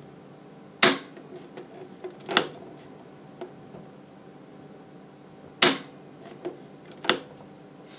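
A 30 mA RCD in a consumer unit tripping under the tester's test current and being switched back on by hand, twice over: four sharp clicks, each reset about a second and a half after its trip, over a faint steady hum. The RCD tripping at each test stage is the sign that it is working.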